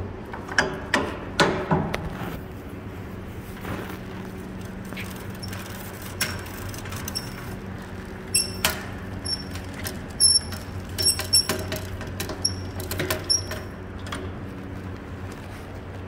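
Metal clanks and clicks from the manual cam-lift end of a Pexto power plate roll as its handle is worked: a few knocks in the first two seconds, then after a lull a run of sharp, ringing metallic clicks. A steady low hum sits underneath.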